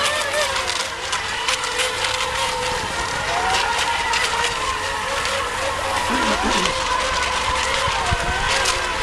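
Several electric racing model boats running together: their motors whine at a few held pitches, some rising and falling as the boats speed up and turn, over the hiss of their hulls on the water.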